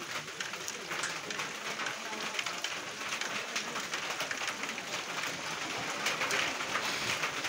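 Steady rain falling: a dense, even hiss with many small drop taps through it.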